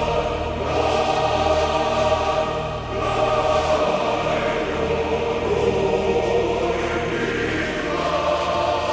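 Choir singing slow, sustained chords as background music, the harmony changing every few seconds.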